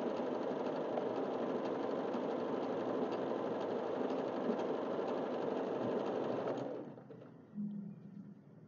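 Yamata FY-930 portable electric sewing machine running steadily as it stitches through fabric, then stopping near the end.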